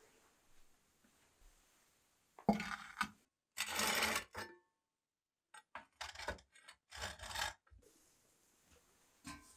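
A poker raking glowing embers and ash in the firebox of a masonry wood-fired stove, in several short scraping strokes, the loudest about four seconds in.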